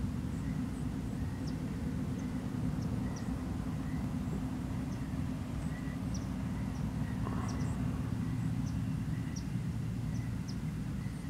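Outdoor ambience at a pond's edge: a steady low rumble, with short faint high chirps scattered through it.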